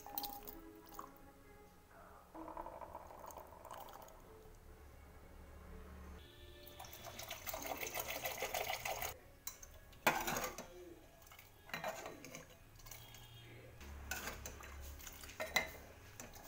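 Water poured from a glass into a steel pot of curry, splashing for about two and a half seconds, followed by a metal ladle clinking against the pot several times as the curry is stirred.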